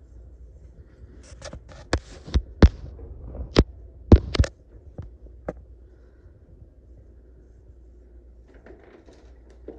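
A quick, irregular run of about ten sharp knocks and clicks in the first half, the loudest two about two and a half and four seconds in, over a steady low room hum that carries on alone afterwards.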